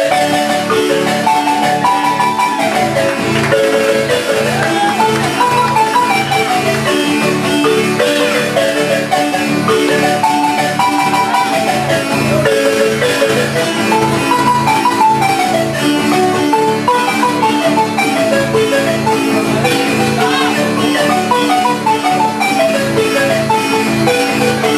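Nicaraguan marimba de arco playing a lively dance tune in quick rippling runs, over a steady strummed guitar accompaniment.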